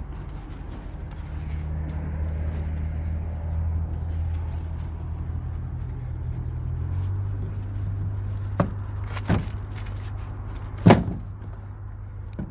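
Vehicle engine idling with a steady low drone whose note changes about seven seconds in, and three sharp knocks near the end, the third the loudest.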